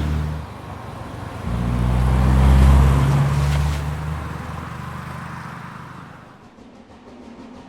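A motor vehicle drives past: its low engine hum swells about a second and a half in, is loudest near three seconds, then fades away.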